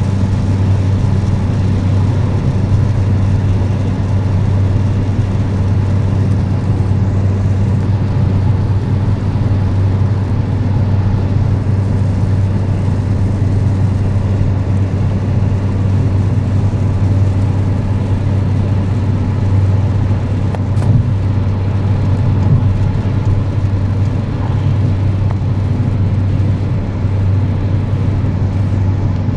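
Steady road and engine noise inside a moving car's cabin at motorway speed: a constant low hum with tyre rumble over it.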